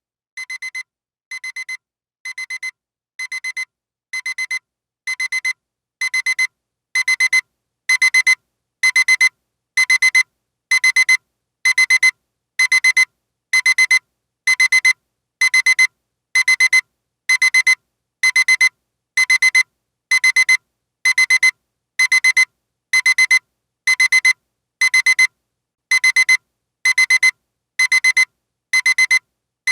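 Electronic alarm beeping: a high-pitched pulsing beep repeats about once a second. It grows louder over the first several seconds, then holds at one level.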